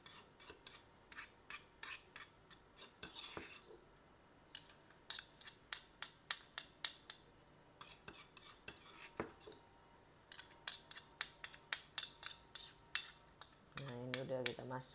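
A utensil knocking and scraping against a mortar in quick runs of sharp clinks, about three to four a second, with short pauses between runs, as pounded fermented black bean paste is knocked out into a bowl of ground pork.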